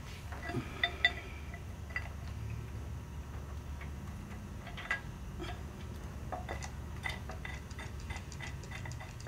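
Light metallic clinks, taps and short ringing pings as a cast hydraulic manifold is handled and fitted against a tractor engine block, with a cluster of quick ticks near the end. A low steady hum underneath.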